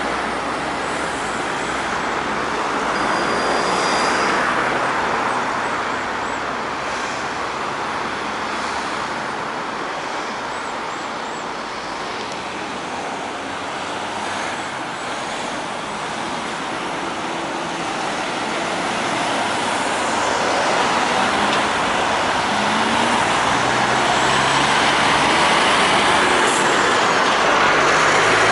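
Road traffic passing a pedestrian crossing: a continuous rush of vehicles that swells as one goes by about four seconds in and builds again, loudest over the last third.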